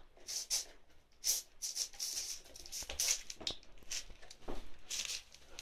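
A dog eating minced meat fast from a paper plate: quick, irregular wet smacking and chewing noises.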